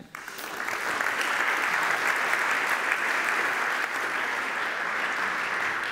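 Audience applauding, swelling over the first second, then steady, easing off slightly near the end.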